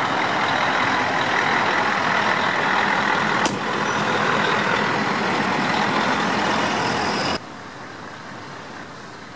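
Scania R-series V8 tractor unit driving slowly past close by, its engine and exhaust running steadily and loudly, with a short click midway. About seven seconds in the sound drops suddenly to a much quieter background.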